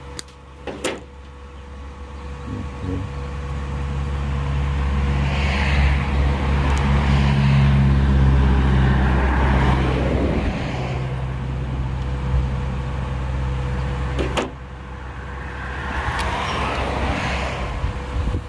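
Electric hum of a MIG welder running with its wire feed motor driving the wire through. It swells louder, drops with a click about fourteen seconds in, then rises again.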